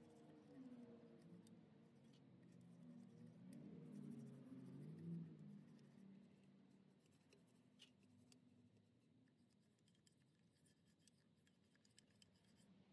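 Near silence, with a faint low murmur in the first six seconds.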